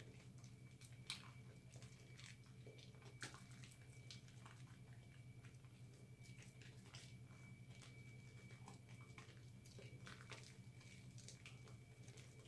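Soapy hands squeezing and rubbing a bar of recycled soap into lather, faint wet squishing with irregular little crackles of foam, over a steady low hum.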